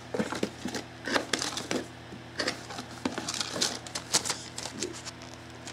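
Paper receipt being handled and unfolded: irregular rustling and crinkling in quick short crackles, over a steady low hum.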